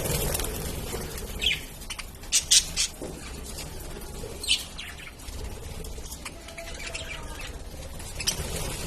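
Pet lovebirds giving short, sharp chirps: single calls scattered through, with a quick run of three about two and a half seconds in, the loudest of them.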